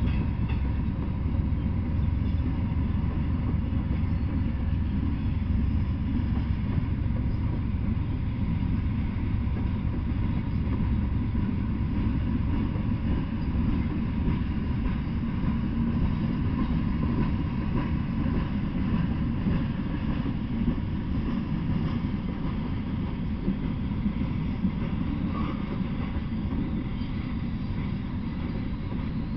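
Norfolk Southern open-top hopper cars of a freight train rolling past, a steady low rumble of wheels on rail that eases slightly near the end.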